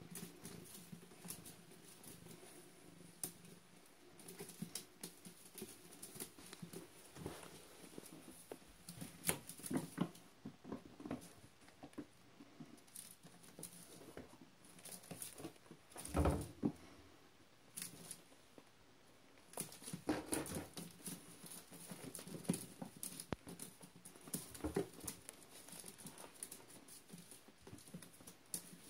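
Kittens playing in and around a wicker basket: small claws scratching and scrabbling on the woven wicker and pattering on a tile floor, an irregular run of light clicks and rustles, with a louder bump about halfway through.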